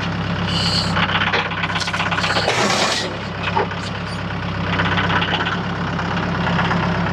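Engine running steadily at a constant speed.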